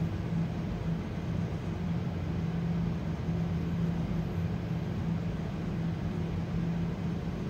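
Steady low machine hum with a constant low tone and no clear events.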